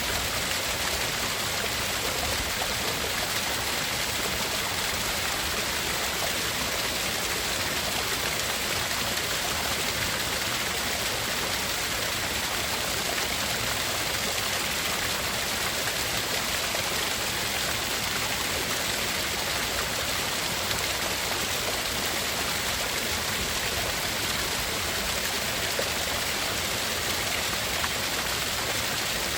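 Steady, unchanging hiss of tinnitus-masking noise, heavier in the treble, with two narrow bands near the top cut out of it.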